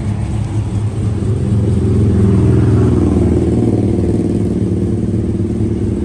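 2017 Ram 1500 pickup's engine idling through its exhaust in a steady low note, swelling a little in level about two seconds in and then holding steady.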